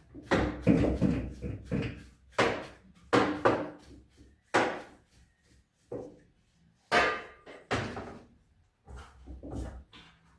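Irregular knocks, clunks and bangs, about a dozen, from handling and working on a front-loading washing machine under repair, some with a short metallic ring.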